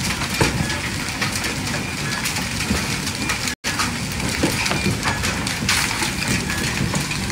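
Hailstones pelting down onto wet brick paving and nearby structures, a dense, steady clatter of countless small impacts. The sound drops out for an instant about halfway through.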